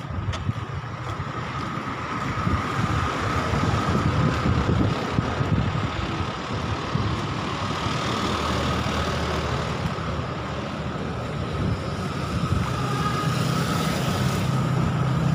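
Street traffic passing on the road: cars and a small box truck driving by, a continuous rumble of engines and tyres that grows slowly louder.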